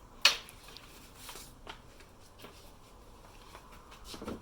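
A sharp plastic knock about a quarter second in, then faint scattered clicks and rustles and a duller knock near the end: a car radiator and fan assembly being handled and lowered into its mounting frame.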